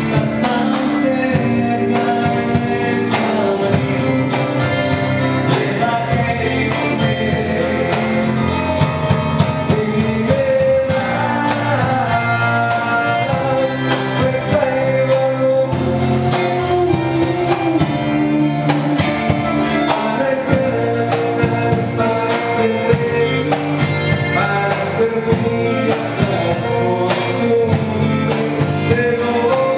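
Live band playing an acoustic Christian song, with acoustic guitars, keyboard and percussion under a sung vocal line.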